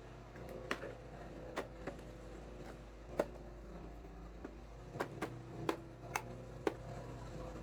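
Small plastic toy pieces being handled, giving about nine sharp, separate clicks and taps at uneven intervals, with a pair close together near the middle, over a steady low hum.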